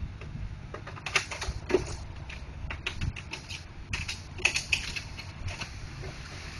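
Irregular sharp clicks and knocks of plastic printer parts being handled and unclipped during disassembly, over a low steady hum.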